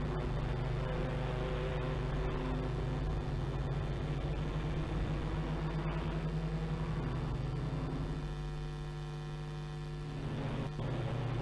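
BMW race cars' engines running around the circuit, mixed with a steady low hum. The sound dips slightly about eight seconds in and comes back up about ten seconds in.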